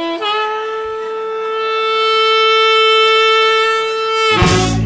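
Background music: a saxophone plays a short rising run, then holds one long steady note, cut off by a loud full-band hit near the end.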